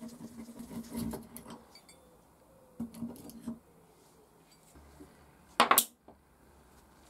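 Screwdriver turning a rusty screw out of a cast-iron hand plane's frog, small metallic clicks and scrapes in two short bouts. About two-thirds of the way in comes a single loud, sharp metallic clank.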